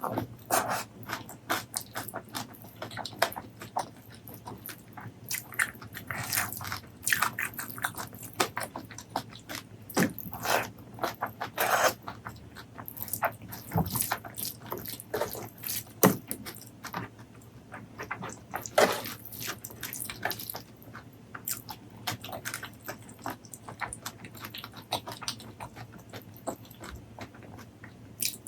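Close-miked eating: chewing and biting, a dense, irregular string of short wet clicks and smacks with occasional louder crunches.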